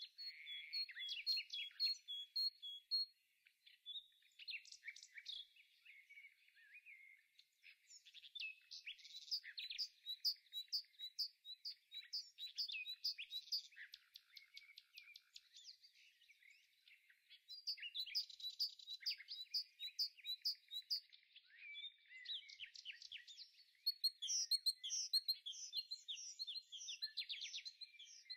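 Songbirds singing: a dense run of quick chirps and trills, coming in bursts with brief lulls, with no kitchen sounds heard.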